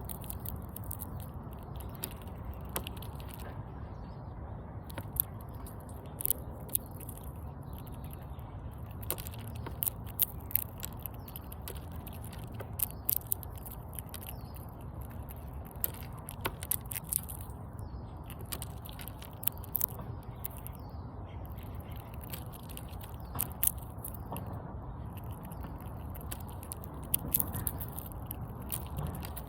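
Squirrel gnawing and chewing on food: irregular sharp crunching clicks in bursts with short pauses between, over a steady low background rumble.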